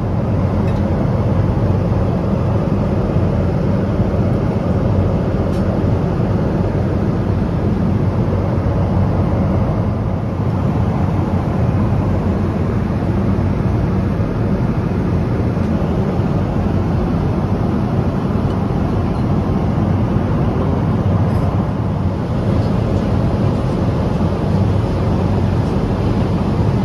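Steady low rumble of engine and airflow noise inside a Boeing 777-200 cabin in cruise flight.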